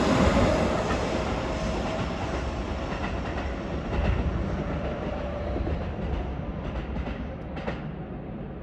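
Hokuso Railway electric commuter train running past at speed, its wheel and running noise loud at first and fading away. After about four seconds a fainter train can be heard, with a few sharp clicks of wheels over rail joints near the end.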